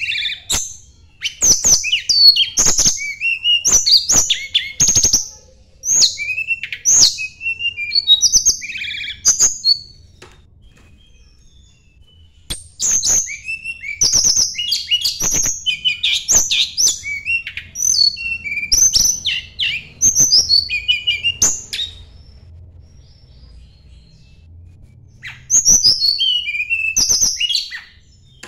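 Tledekan gunung songbird singing its challenge song: rapid, high-pitched chirping phrases in quick bursts, broken by two pauses of a few seconds.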